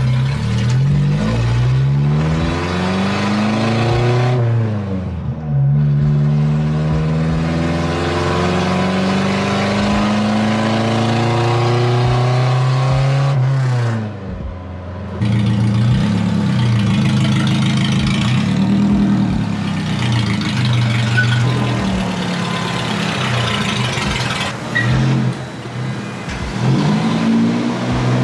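Straight-piped mini truck's engine and exhaust, heard from inside the cab with the window down, loud as the truck pulls away and accelerates. The engine pitch climbs and then drops sharply at gear changes, about four and fourteen seconds in, and it climbs again after each change.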